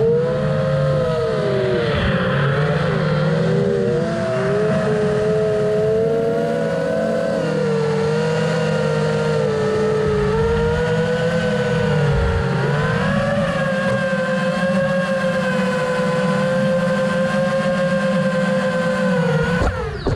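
An FPV racing quadcopter's motors and propellers whine steadily, as heard from the camera on board. The pitch wavers up and down with the throttle.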